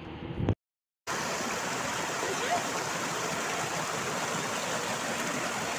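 Muddy floodwater rushing and cascading down over rocks, a steady noise of pouring water that starts after a short silence about a second in.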